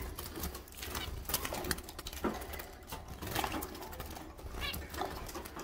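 A house sparrow and caged finches fluttering in a wire birdcage, wings and feet rattling against the bars. Short chirps come through a few times, mixed with the rattling.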